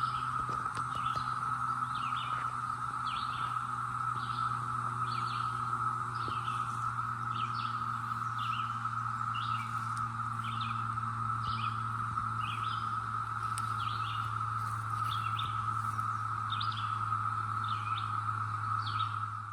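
Brood X periodical cicada chorus: a steady, unbroken drone. Over it a bird chirps again and again with short high notes, and a low steady hum runs underneath.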